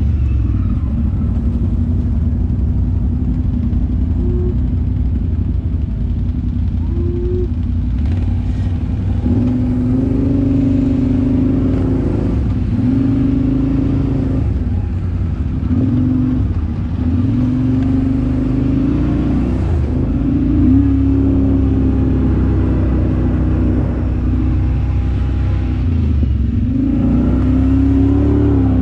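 Motorcycle engine running under way, its pitch rising and falling several times as the throttle is opened and closed, over a steady low rumble.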